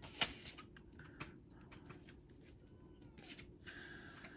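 A cat meowing faintly a couple of times, with quiet clicks and rustles of plastic card sleeves being handled; the sharpest click comes just after the start.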